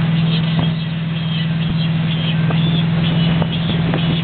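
Tow boat's engine running steadily at speed, a constant low hum, over the rushing of the churned wake water.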